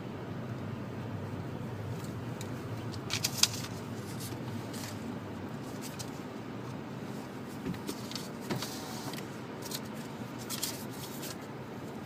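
Steady low rumble of a car heard from inside its cabin as it rolls forward slowly, with a few sharp clicks and rattles, the loudest about three seconds in.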